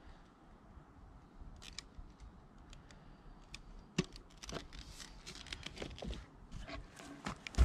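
Manual caulking gun dispensing construction adhesive: scattered clicks from the trigger and plunger rod, becoming busier with handling noise about four seconds in. A sharp knock comes near the end.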